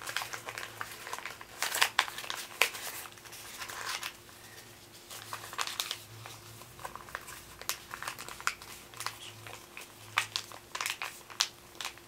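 A sheet of white paper handled and folded by hand, rustling and crinkling in irregular sharp crackles, loudest about two seconds in.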